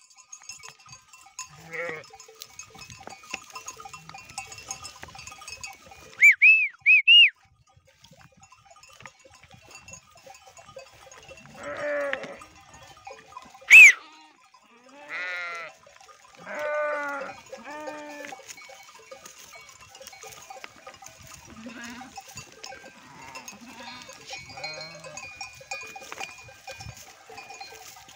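A flock of sheep and goats grazing, with bells tinkling lightly throughout and several sheep bleating, mostly in the middle. Three short high calls come early on, and one loud, sharp, brief sound comes about halfway through.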